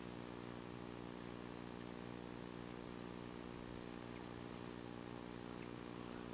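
A steady low hum with a high, even buzz that sounds for about a second at a time and repeats roughly every two seconds.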